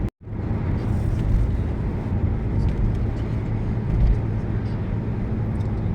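Steady cabin noise of a moving car: a low engine and tyre rumble on the road. The sound cuts out for an instant right at the start.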